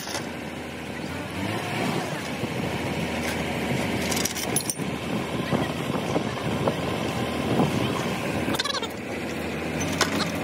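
Diesel engine of a truck-mounted crane running steadily while it holds a suspended load on chains, with men's voices calling out. A few sharp clicks come through about midway and near the end.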